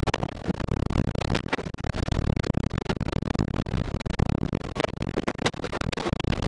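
Tornado wind heard from inside an armored storm-chasing vehicle, a heavy steady rush with many sharp, irregular hits of rain and debris striking the vehicle's body.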